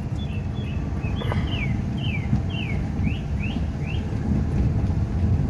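Car moving slowly, heard from inside the cabin, with a steady low engine and road rumble. Over it comes a run of about eight short, high chirps, each falling in pitch, roughly two a second, and a single click about a second in.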